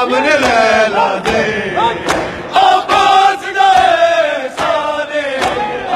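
A crowd of men chanting a Punjabi noha together, with the sharp slaps of hands striking chests in matam about once or twice a second.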